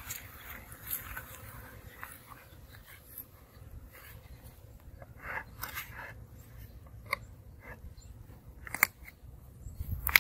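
Wooden beehive frames and boxes being handled: scattered short knocks, clicks and scrapes as frames are lifted and set into the hive body.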